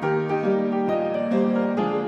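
Piano music, soft notes struck one after another with chords held between them.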